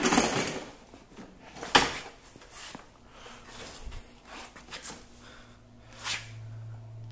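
Handling noises while a work light is fetched: rustling, a sharp click about two seconds in, and a few light knocks and taps. A steady low hum starts near the end.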